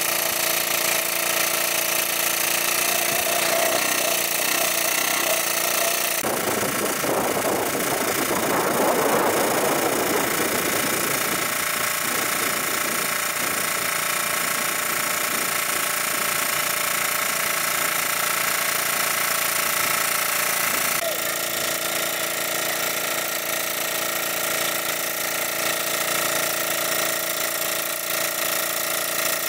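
Engine of a large-capacity water pump running steadily at an even pitch. From about six and a half seconds in, a rushing noise swells and fades over a few seconds, and the engine's tone shifts abruptly near the start and again about two-thirds of the way through.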